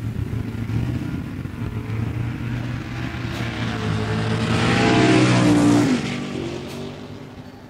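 Indy race car engine passing at speed over a steady low rumble. Its note climbs as it approaches, is loudest about five seconds in, then drops in pitch and fades away.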